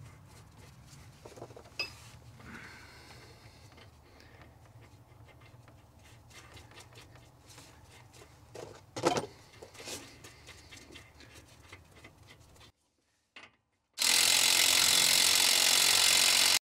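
Wheel-stud nuts being spun on by hand, with faint metal handling noise and one sharper clink about nine seconds in. After a brief silence near the end, a loud, steady mechanical rattle starts as a hand tool tightens the nuts to pull the new studs through the wheel.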